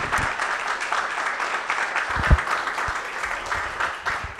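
Audience applauding in a hall, steady clapping that fades near the end, with a dull thump about two seconds in.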